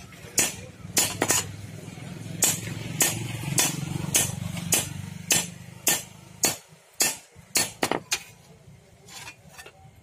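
Sharp metallic clinks of a hammer striking an iron blade at a ground forge, about two a second, coming faster about two-thirds of the way in. A low steady hum sits underneath and stops at about the same point.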